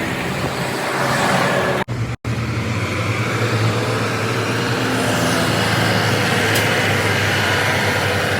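A road vehicle's engine running steadily among traffic noise, with the sound cutting out twice for an instant about two seconds in.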